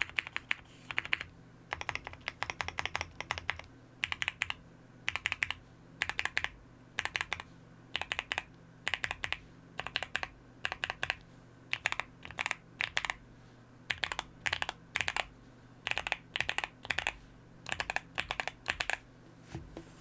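Typing on a QK65 mechanical keyboard with Gateron Oil King linear switches and PBT keycaps, all-foam build: rapid keystrokes in short bursts with brief pauses between words. The typing stops just before the end.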